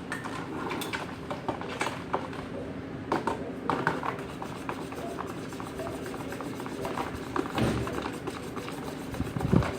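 Homemade slime being stirred in bowls: a run of small irregular clicks and taps, with wet squishing as the glue and dye are mixed.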